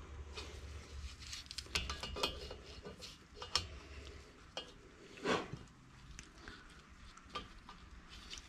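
Metal clicks and clinks of a digital caliper being handled and set against the cylinder bore of an engine block, with one louder knock about five seconds in.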